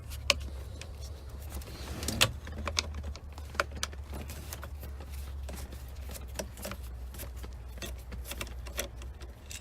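Irregular small clicks and taps of a T20 Torx screwdriver and plastic shifter trim being worked as the screw under the shift knob is removed, over a steady low hum.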